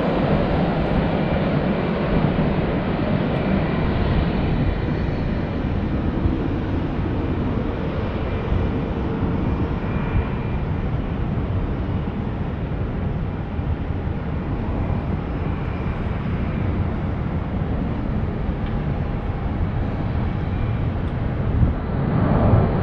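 Jet airliner engines: a steady rushing roar with faint whining tones, getting a little louder near the end.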